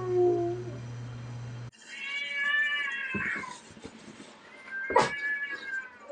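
Pit bull whimpering in its sleep: a low, drawn-out whine over a steady hum ends in an abrupt cut, then two high, falling whimpers follow, with a sharp click between them.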